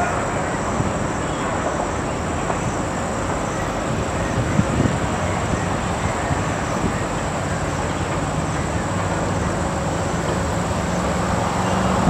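Wind blowing across the microphone: a steady, low rumbling noise with a thin, steady high whine above it.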